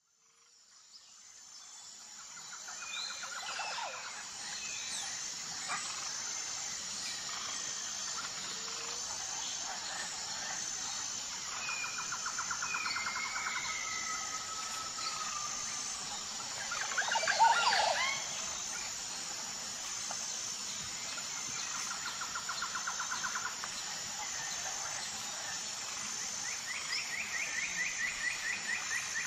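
Outdoor nature ambience fading in: several birds calling with repeated trills and whistles over a steady, high insect chirring that pulses at an even rate. The loudest call comes a little past halfway.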